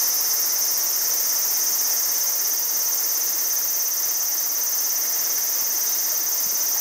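Steady high-pitched chorus of summer insects over the even rush of a shallow mountain river running over stones.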